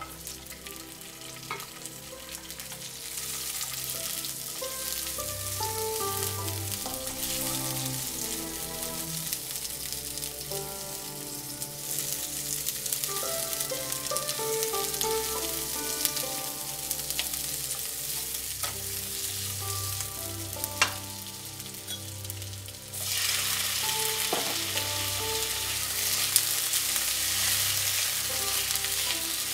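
Cubed peppers, onion and pineapple sizzling in hot oil in a nonstick pan as they are stirred with a silicone spatula. The sizzle builds a few seconds in, dies down for a while, then comes back suddenly louder, with an occasional knock of the spatula on the pan.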